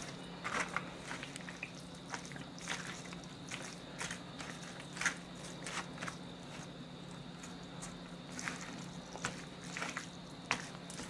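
Disposable wooden chopsticks tossing sauced shredded vegetables and noodles in a plastic takeout tray: irregular wet squishes and light clicks of the chopsticks against the food and tray.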